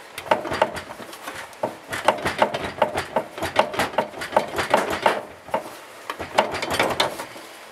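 Irregular metallic clunks, clicks and knocks as a 2003 Ford Explorer's transfer case is rocked back and forth by hand to work it loose from the back of the transmission.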